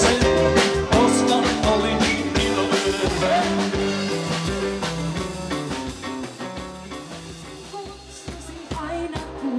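Live band playing 1980s pop-rock with drums, bass and keyboards. The music dies down about six to eight seconds in and picks up again near the end, as between songs of a medley.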